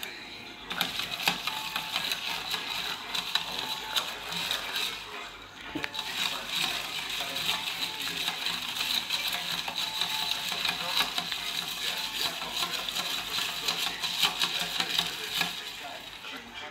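Long metal spoon stirring a drink in a tall clear jug: rapid, continuous clinking and scraping against the jug's sides, with a short let-up about five and a half seconds in.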